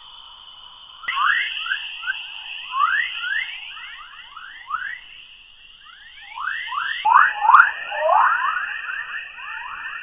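Space radio emissions played back as audio: many short chirping tones sweeping in pitch, several a second, over a steady high hiss, changing abruptly about a second in and again about seven seconds in.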